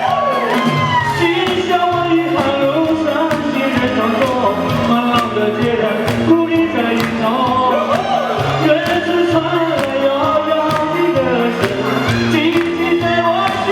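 Music: a singing voice with gliding notes over a steady beat and a bass line.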